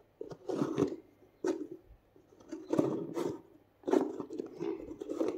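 Rustling and scraping as a shoelace is drawn out through the eyelets of a leather brogue and the shoe is handled, in several short bursts with brief pauses between.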